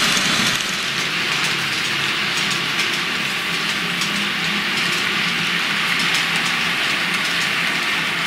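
TT-scale model train running on the layout: a BR 187 electric locomotive model's small motor humming while it and its string of open freight wagons roll over the track with a steady rolling noise and faint fine clicks.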